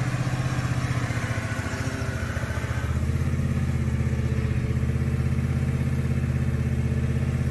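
John Deere zero-turn riding mower's engine running steadily at working speed as the mower cuts tall grass.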